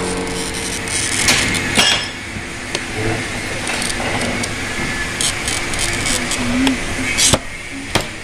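Pieces of stained glass clinking and tapping against each other and the work table as they are handled, with a hand-held glass cutter scoring across amber glass. A steady engine hum fades away at the very start.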